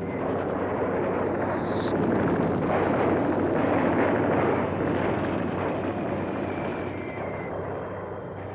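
Battle sound of artillery and shell explosions merging into one continuous rumble, swelling to a peak midway and then slowly dying down.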